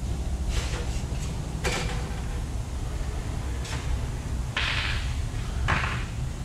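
Steady low rumble of shop noise with several short clunks and scrapes, the longest lasting about half a second roughly two-thirds of the way through.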